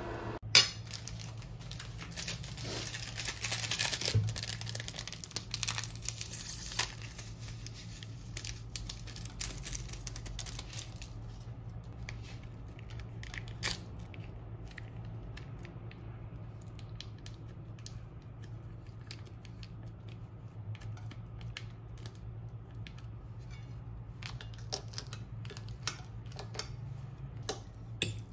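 Small plastic seasoning sachets torn open and crinkled, loudest in the first few seconds, then scattered light clicks of a metal fork against a ceramic plate as instant noodles are mixed. A steady low hum runs underneath.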